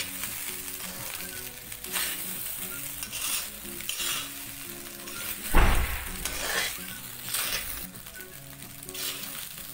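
Steel spatula scraping and tossing cooked rice and vegetables around a kadai while they sizzle in the oil, with a scrape or clink about every second. A louder knock comes about halfway through.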